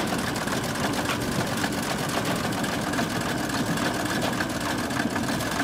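Franklin air-cooled inline six-cylinder engine idling steadily, with a fast, even mechanical clatter.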